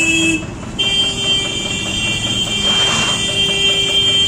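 Vehicle horn: a short toot, then a steady blast held for about four seconds from about a second in.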